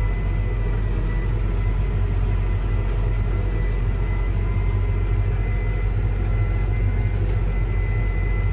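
Farm tractor engine running steadily under way, a constant low drone with a steady high whine over it.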